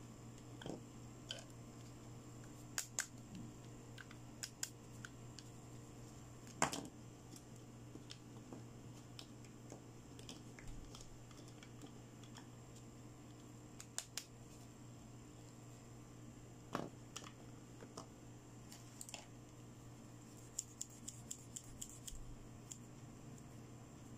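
Small plastic toy doctor instruments being handled and set down on a tabletop: scattered light clicks and taps, one sharper knock about seven seconds in, and a quick run of small clicks near the end, over a faint steady hum.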